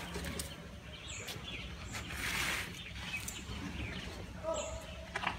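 Outdoor ambience with a low steady hum and a few short, high, falling bird chirps, plus a soft rustle about two seconds in.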